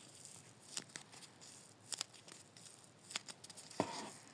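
Homemade paper crafts being handled: faint rustling of paper with three sharp clicks, spaced a little over a second apart.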